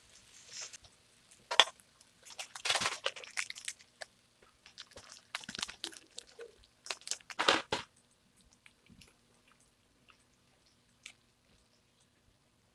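Crinkling and tearing of plastic instant-noodle seasoning sachets, with clicks of metal tongs against the grill pan: short sharp bursts that are busiest in the first eight seconds, then only a few faint ticks.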